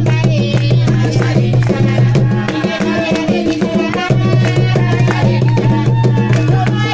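Dance music with fast, dense drumming over a steady deep bass note, with melodic lines on top.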